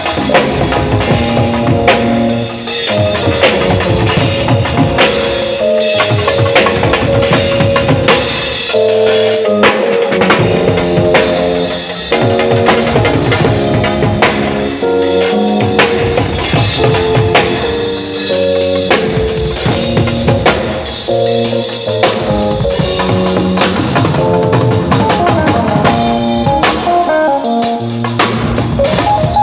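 Live band playing: a drum kit with bass drum and snare strikes throughout, under melodic instruments holding changing notes.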